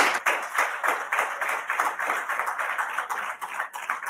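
Audience applauding with many overlapping hand claps, thinning to sparser claps near the end.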